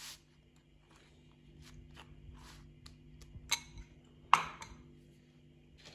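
A spoon spreading sauce over a flatbread, with a few light clicks of the spoon against the bowl. The sharpest click comes a little past the middle, over a faint steady hum.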